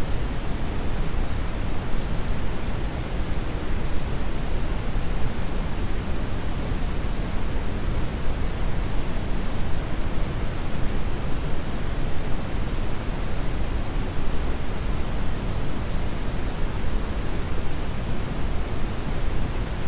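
Steady brown noise: a continuous, even rushing hiss weighted toward the deep end, unchanging throughout.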